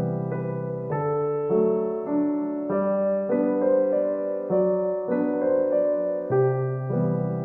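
Background music: a soft piano tune, one sustained note or chord after another, changing about every second.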